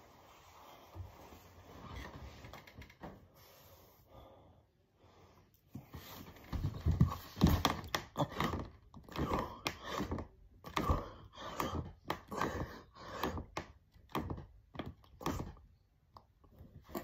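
A man breathing hard in a steady rhythm of quick, noisy breaths, about two a second, through a set of push-ups. Fainter for the first several seconds, then heavier from about six seconds in.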